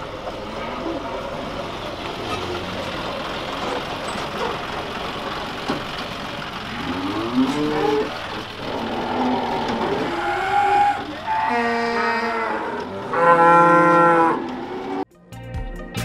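Holstein Friesian dairy cows mooing several times over a steady background noise. The last moo is the longest and loudest, and the sound cuts off abruptly near the end.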